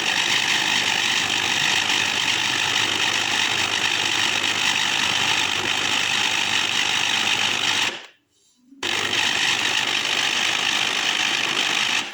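Electric blender grinding a thick paste of steamed dried figs and raisins, its motor running steadily. It stops for under a second about two-thirds of the way through, then runs again.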